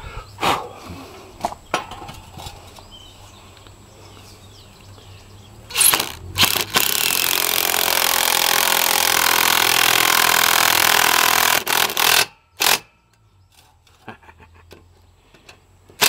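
Makita cordless impact driver driving a Tapcon masonry screw into brick. It gives a few short trigger bursts, then runs steadily and loudly for about five seconds. It ends with two quick bursts and stops as the screw seats.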